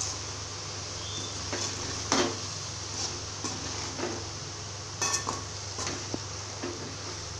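Metal spatula scraping and clinking against an aluminium kadai as soya chunks with spice powder are stirred, in irregular strokes over a steady low hum.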